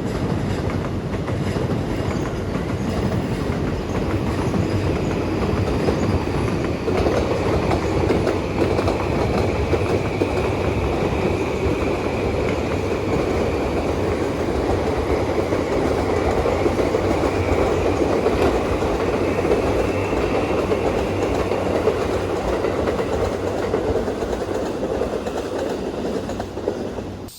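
A train running steadily along the tracks with wheel-on-rail noise, cutting off at the end.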